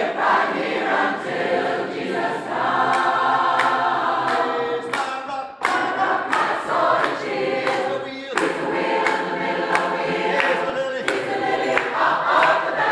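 Mixed-voice choir singing a gospel song a cappella, with handclaps keeping a steady beat about twice a second.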